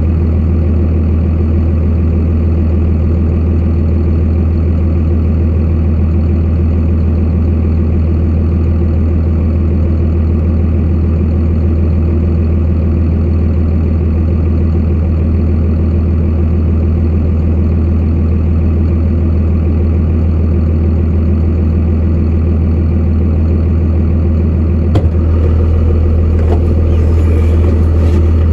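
A truck engine running steadily with a low, even drone, and a single click near the end.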